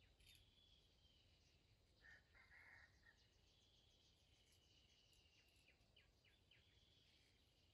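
Near silence: a faint, steady insect trill, with a short bird call about two seconds in.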